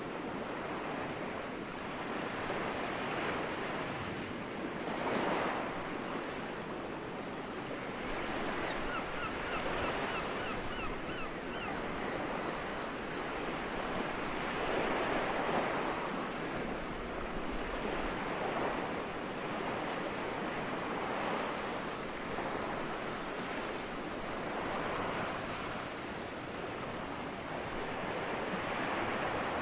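Small sea waves breaking and washing up the shore, swelling every few seconds. About nine seconds in, a bird gives a quick run of short calls.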